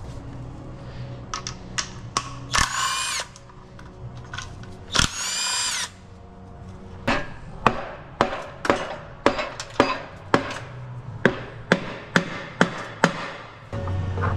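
A cordless power tool whirs twice, about a second each time, as the last bolts come out of a Honda K24A's aluminium oil pan. Then a mallet taps the oil pan about two times a second for several seconds, knocking it loose from the block.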